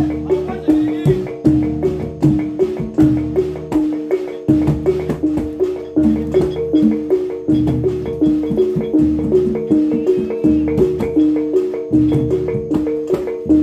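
Javanese gamelan accompaniment for reog and jathilan dance: bronze gongs and kettle gongs ringing short repeated notes in a quick, steady beat, with deeper strokes underneath.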